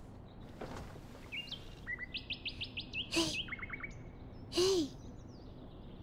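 Morning birdsong: small birds chirping, with quick trills of rapidly repeated notes starting about a second and a half in. Over it come two short breathy voice sounds, a brief one near the middle and a louder, longer one about a second later, each with a low pitch that bends up and down.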